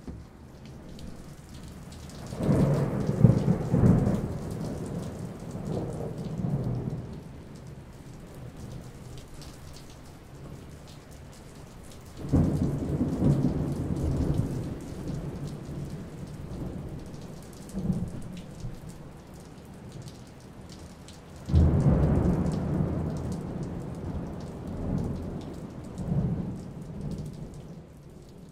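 Thunderstorm recording: steady rain throughout, with three long rolls of thunder about ten seconds apart, each breaking in suddenly and rumbling away over several seconds.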